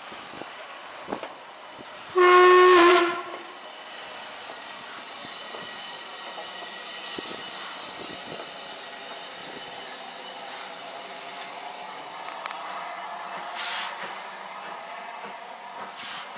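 A steam locomotive whistle, from LMS Stanier 8F 48624, sounds once, loud and under a second long, about two seconds in. A steady hiss of steam from the slowly moving engine follows, with a short louder rush of noise near the end.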